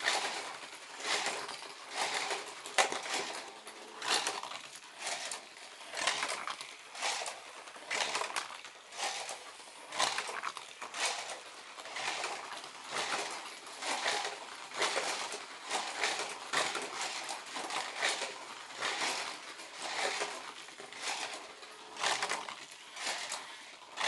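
Battery-powered toy race cars, a Hot Wheels Sizzlers and a Corgi Rockets, running laps around a plastic track: a rattling whirr that swells each time a car passes, about once a second.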